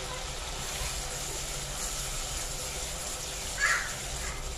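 Grated onion and spices frying in oil in an aluminium pot, a steady sizzle, with a spatula stirring near the end. A little past three and a half seconds in, one short loud call cuts across it.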